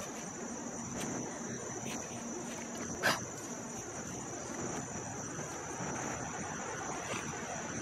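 Steady high-pitched insect trill, with a few light knocks from an AC compressor being handled and turned over on a table. The clearest knock comes about three seconds in.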